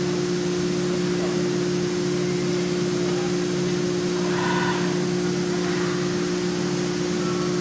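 Three-axis CNC foam-milling machining center running steadily: a constant machine hum with two steady tones and an even hiss.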